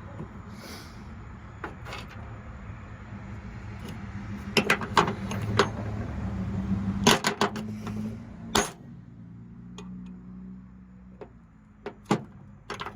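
Metal parts of a Stripmeister wire stripper clinking and clicking as it is reassembled by hand: scattered sharp knocks, several in quick runs, over a steady low hum that drops away about seven seconds in.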